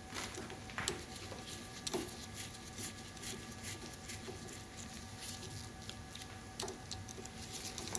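Faint scratching and light clicks of a long Phillips screwdriver turning small screws in the aluminium housing of a motorcycle shock's preload adjuster pump, with a few sharper clicks about one, two and six and a half seconds in. A faint steady hum runs underneath.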